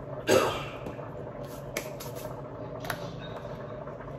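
A small spice shaker set down on a hard countertop with a sharp knock, then a couple of light clicks and taps from handling, over a steady low hum.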